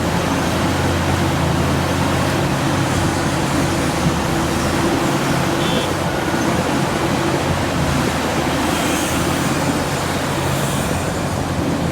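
Caterpillar excavator's diesel engine running steadily with a low, even drone.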